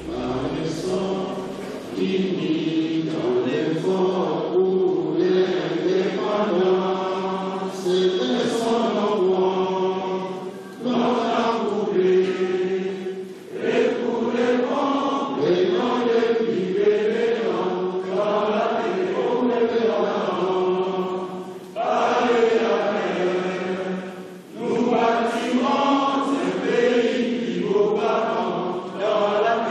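Vocal music: a group of voices chanting together in long, held phrases, with short breaks between phrases.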